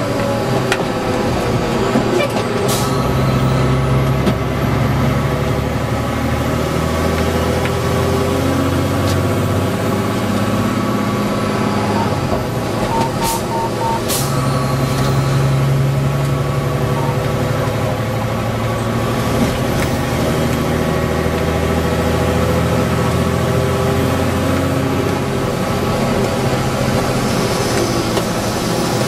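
Fire engine's diesel engine and road noise heard from inside the cab while driving. The engine pulls harder twice as the truck accelerates, with a few sharp clicks and a brief run of quick beeps about halfway through.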